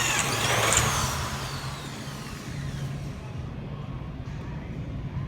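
Electric drill's motor whine cutting off and winding down with a falling pitch, together with a short hiss about a second in, over a low steady drone.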